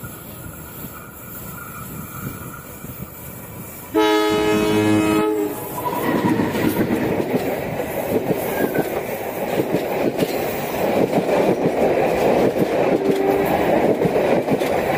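A CC204 diesel locomotive sounds one blast of its horn, a chord of several tones lasting just over a second, about four seconds in. Right after, the train passes close by: a loud steady rumble of wheels on rail with clickety-clack from the passing passenger coaches.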